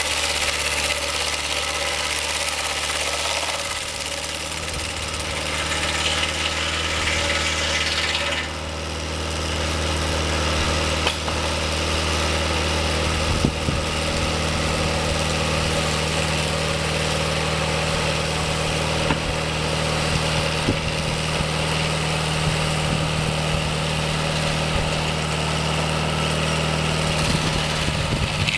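Portable band sawmill's engine running steadily, with the band blade cutting through the log and throwing out sawdust until about eight seconds in. After the cut ends the engine runs on while the saw head travels back along the track.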